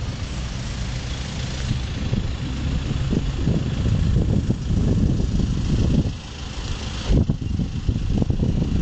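Wind buffeting the microphone: an uneven low rumble that rises and falls in gusts, easing briefly about six seconds in and then coming back.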